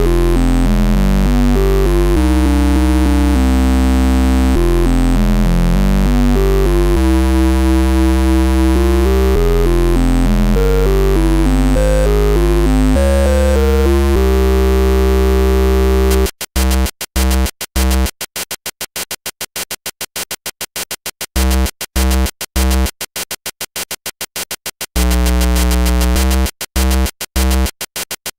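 Amiga ProTracker chiptune module playing: steady synth bass notes under a shifting melody, then a little past halfway the music turns choppy, cutting rapidly in and out to silence, with two short unbroken stretches near the end.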